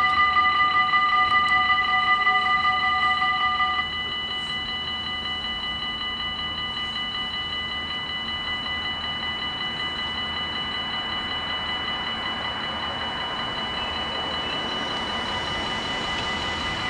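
Level-crossing bells at a Dutch automatic half-barrier crossing ringing rapidly and steadily as the barriers lower. About four seconds in, the loudest bells stop once the barriers are down, and a quieter bell keeps ringing.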